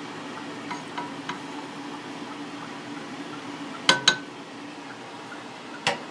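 Kitchenware clinking: two sharp clinks close together about four seconds in, the first with a brief ringing note, and another near the end, with a few faint ticks early on, over a steady low hum.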